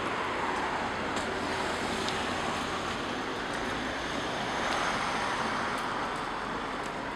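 Road traffic noise: a steady hiss of passing vehicles, swelling a little louder near five seconds in.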